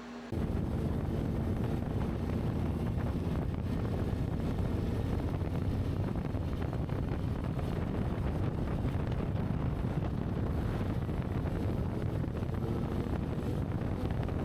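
Steady wind buffeting the microphone, heavy and rumbling in the low end. It cuts in suddenly just after the start.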